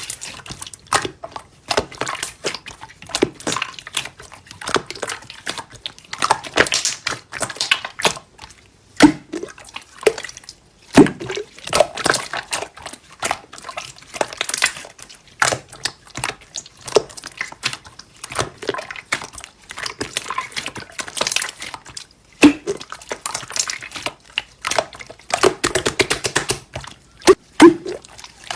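Slime being squeezed, folded and poked by hand, with many wet clicks and pops.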